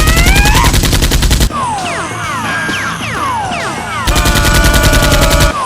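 Two bursts of rapid automatic gunfire, a dubbed machine-gun sound effect: one at the start lasting about a second and a half, and another about four seconds in, each with a held tone over it. Between the bursts come repeated falling whistle-like tones.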